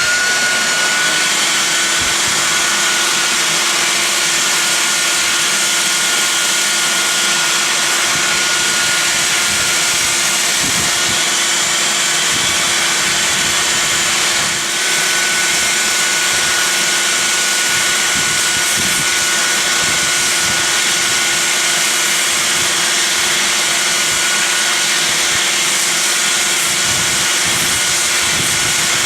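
Porter-Cable 371 belt sander running steadily while sanding a wooden mallet head, with the dust-extraction vacuum running on its hose; the sound dips briefly about halfway through.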